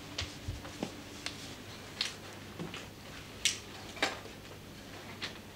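Handling noise as a clip-on microphone is fitted to a cloth robe: about half a dozen short clicks and rustles at irregular intervals, over a faint steady hum.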